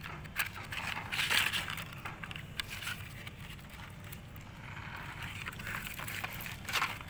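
Cardboard sparkler boxes being handled and wire sparklers slid out of a box: rustling and scraping in several bursts, with a few small clicks.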